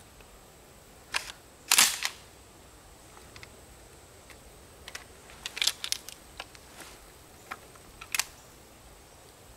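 Metal clicks and clacks of an RIA Carina shotgun's action being worked by hand to clear an old shell that failed to fire. The loudest clack comes about two seconds in, with a cluster of quick clicks around the middle and two more near the end.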